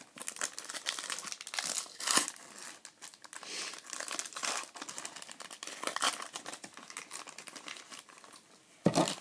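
Foil wrapper of a football trading-card pack being torn open and crumpled by hand: a long run of irregular, crisp crinkles and tearing rustles.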